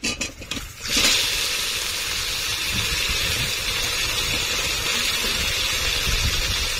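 Pieces of taro corm (kochur mukhi) tipped into hot oil in a pan: a few brief clatters, then a steady sizzle that starts about a second in.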